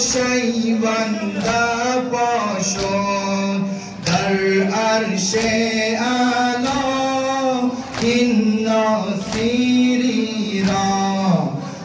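A male voice chanting a Persian-language noha (Shia mourning lament), with the mourners' rhythmic chest-beating (matam) slaps landing about three every two seconds.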